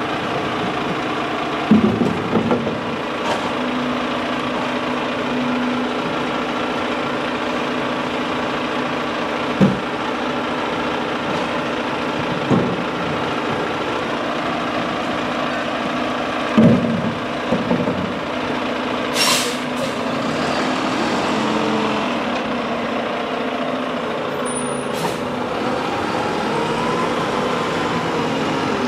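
Mack LR garbage truck engine idling steadily while plastic recycling tubs knock several times against the front-mounted carry can as they are emptied. About two-thirds through the air brakes give a short hiss, another comes shortly after, and near the end the engine note rises as the truck pulls away.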